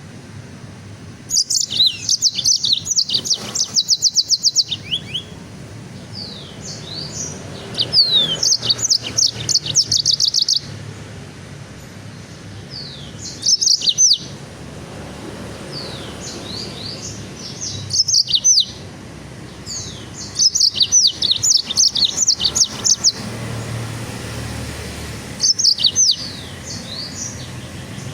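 Songbird singing in bursts of rapid, high chirps, each burst lasting from under a second to about three seconds, with pauses of a few seconds between them.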